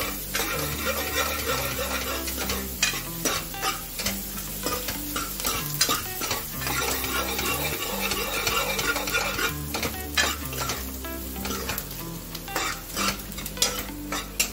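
Chopped onions, garlic, ginger and green chillies frying in ghee and butter in a metal kadai, stirred with a metal ladle: a steady sizzle with irregular scrapes and clicks of the ladle against the pan.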